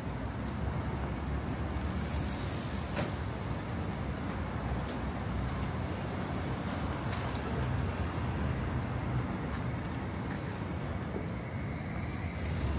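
Steady street noise, mostly a low rumble of road traffic, with a few faint clicks.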